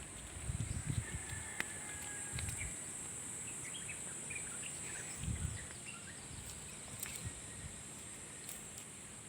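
Outdoor ambience: insects keep up a steady, high-pitched drone throughout. Short bird chirps come in a cluster about three to five seconds in, and there are a few low, dull thumps.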